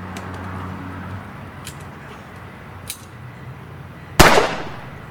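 A single loud, sharp bang about four seconds in, dying away over about half a second.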